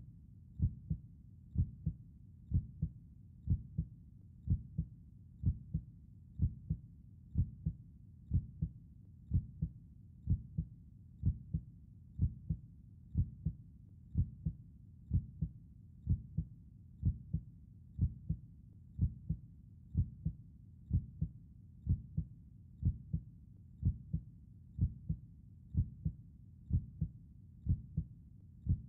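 Steady, slow heartbeat: each beat is a low double thump (lub-dub), about one beat a second.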